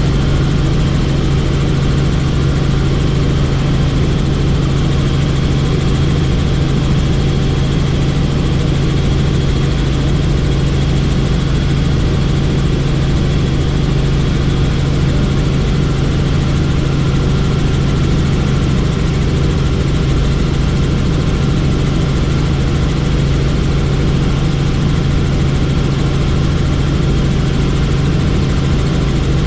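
Helicopter in flight heard from aboard: a loud, steady drone of engine and rotor with a constant low hum, unchanging throughout.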